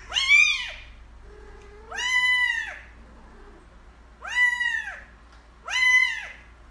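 A kitten meows four times, high-pitched and insistent, about every second and a half. Each meow rises and then falls in pitch.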